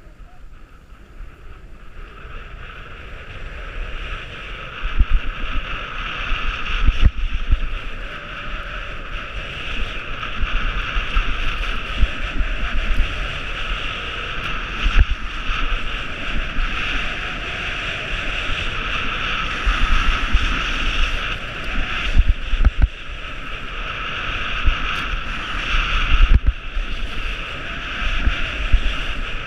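Wind buffeting an action camera's microphone during a fast ski descent, with the steady hiss of skis sliding and scraping over packed snow. It builds over the first few seconds as speed picks up, and low gusty thumps come and go throughout.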